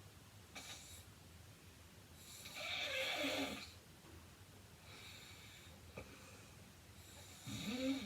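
A heavy-set woman (105 kg) snoring in her sleep. A long, loud snore comes a little over two seconds in and lasts more than a second, softer breaths follow, and a shorter snore with a rising pitched tone comes near the end.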